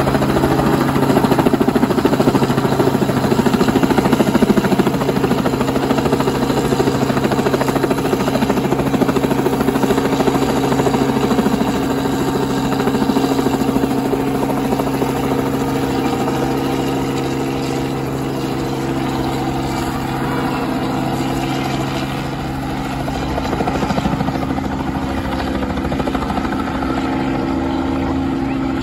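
Small two-bladed helicopter hovering low, its engine and rotor running steadily, growing somewhat fainter in the second half as it moves farther off.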